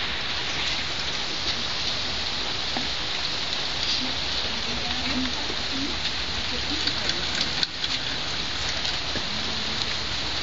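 Steady rain falling, with faint low voices murmuring under it.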